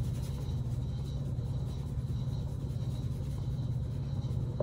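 Steady low kitchen hum with a faint hiss above it, unchanging throughout; no distinct knocks or clatter stand out while garlic powder is shaken into the sauce pan.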